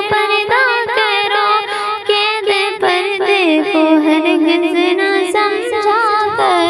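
A female voice singing a slow nazm melody, the pitch wavering and gliding in ornamented turns.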